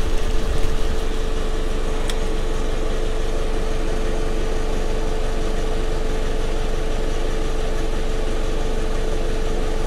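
Small electric motor running steadily with an even hum, with a light click about two seconds in.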